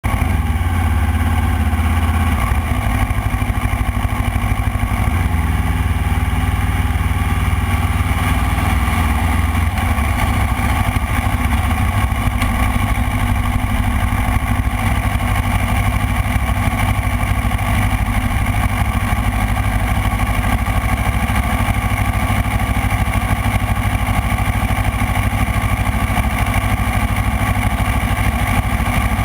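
Motorcycle engine running loudly and continuously, its pitch shifting up and down during the first ten seconds or so and then holding steadier.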